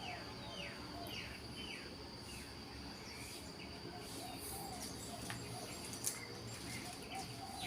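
Birds calling outdoors: a series of short, falling chirps repeated every half-second to second, with softer lower whistled notes. A steady, faint, high thin whine runs underneath.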